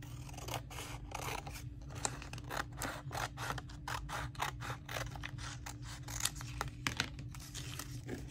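Scissors snipping through paper scraps: a long run of quick, short cuts, about three or four a second, as strips are cut for book hinges.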